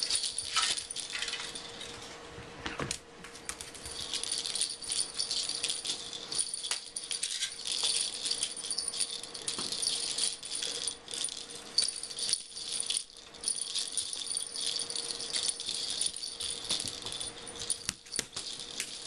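Small jingle bell jingling and rattling almost without a break, a bright metallic shimmer with a few short lulls, as it is shaken about with the play.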